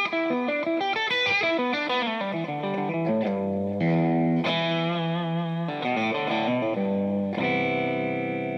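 Electric guitar played through a Kemper profile of a Dumble amp with a Greenback speaker, heard through the Kemper Kab cabinet: a phrase of single notes and short chords, ending near the end on a long held chord that slowly fades.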